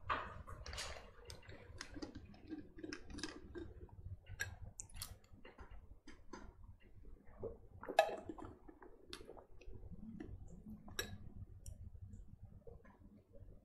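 Scattered, irregular clicks and light rustling close to the microphone, the sharpest about eight seconds in, over a faint low hum.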